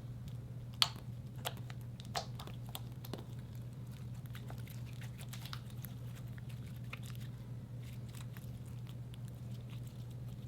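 Slime being handled and pressed: sticky crackling and clicking pops throughout, with a few sharper pops in the first few seconds, the loudest about a second in. A steady low hum underlies it.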